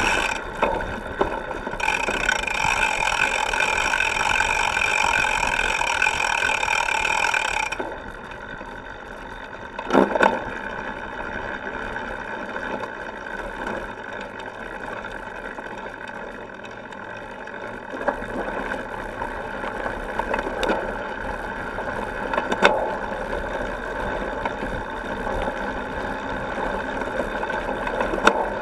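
Cyclocross bicycle rolling over gravel and dirt, heard from a camera clamped to the seat stay: tyre and drivetrain rattle with a few sharp knocks from bumps. A louder buzzing stretch runs from about two seconds in to about eight.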